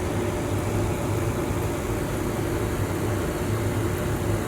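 Steady low machine hum with a hiss, unchanging throughout.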